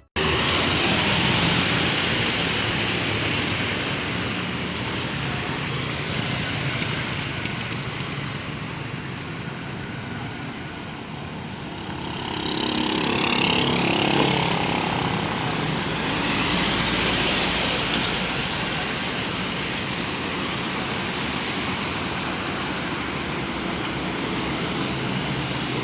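Road traffic: a steady wash of engine and tyre noise, with a large vehicle passing close and growing louder about twelve seconds in, then fading again.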